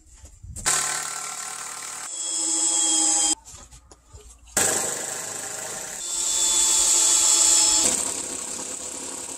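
Electric power tool motor running with a steady whine in spells: it starts just under a second in, stops for about a second around three and a half seconds, then runs again and swells around seven seconds.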